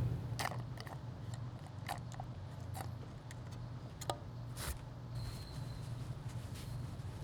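Quiet room tone with a steady low hum and a few faint, scattered clicks and ticks.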